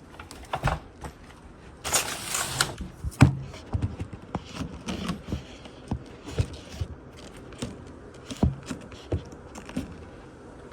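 Irregular sharp clicks and knocks at close range, with a short rustling burst about two seconds in and the loudest knock just after.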